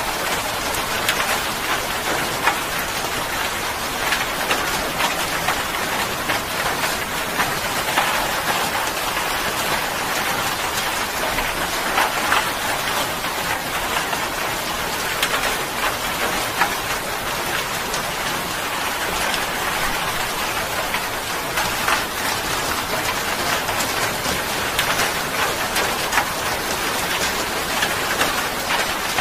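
Steady rainfall, with many separate sharp drop splashes heard through an even hiss.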